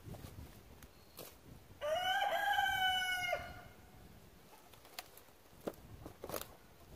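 A rooster crows once about two seconds in, a single rising-then-held call lasting about a second and a half. Around it come a few sharp snaps and clicks of dry sticks being shifted in a log pile.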